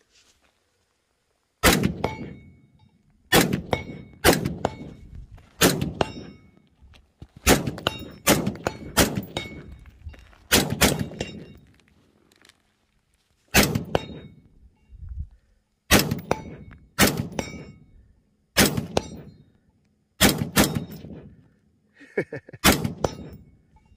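A 5.56 AR-15 rifle firing a string of about twenty shots, some single and some in quick pairs and triples. A short high ring from steel target plates being hit follows several of the shots.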